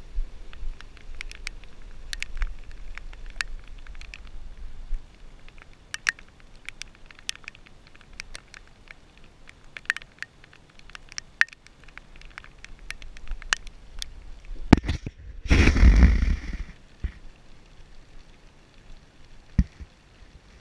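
Handling noise on a camera strapped to a dog's harness: scattered light taps and clicks as the dog moves. About fifteen seconds in comes a loud scraping rustle lasting a second or two as the camera rubs against something.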